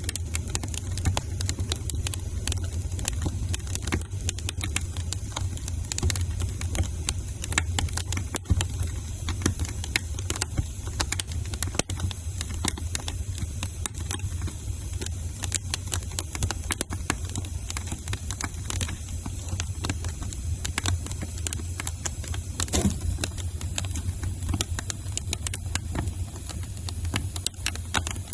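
Wood fire crackling in a fireplace: frequent sharp pops and snaps over a steady low rumble, with one louder snap late on.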